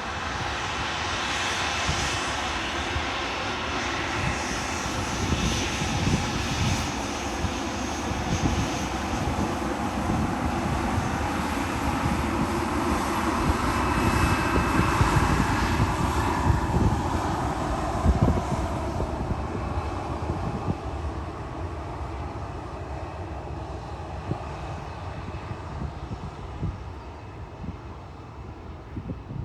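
Airplane engines passing by, growing louder to a peak about halfway through, then fading away toward the end.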